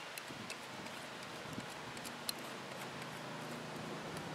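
Thick cornbread batter being poured from a glass bowl into a parchment-lined cast iron Dutch oven: faint, with scattered light ticks, one a little louder a bit past two seconds in.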